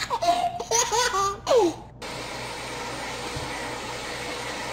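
A toddler giggling and laughing in bursts. About two seconds in it cuts to the steady whir of an electric motor with a faint hum, like a running vacuum cleaner.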